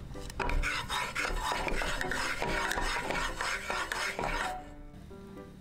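Wooden spatula scraping and rubbing around a nonstick pan to spread the oil, a busy run of scrapes and small clicks that stops about four and a half seconds in.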